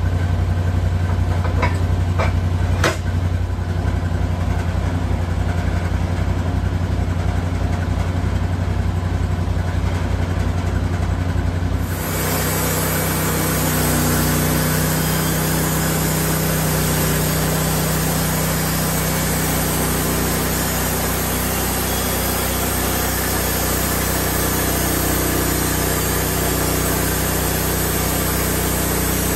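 Bandsaw sawmill's gas engine idling with an even low pulse and a few light clicks. About twelve seconds in it throttles up as the band blade engages, and the mill then runs steadily as the saw head cuts along the log.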